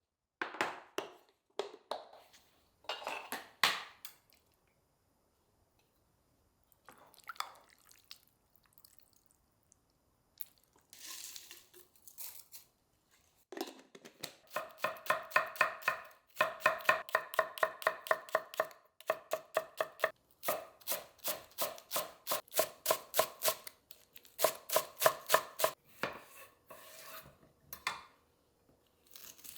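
Kitchen knife chopping food on a cutting board. A few separate cuts come first, then a long run of rapid, evenly spaced chops through the second half, each with a slight ringing tone.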